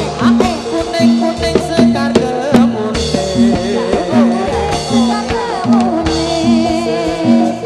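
Javanese gamelan music accompanying a jathilan dance: drum strokes and a low pitched note struck again and again in a steady beat, about one and a half times a second, under a wavering melody line.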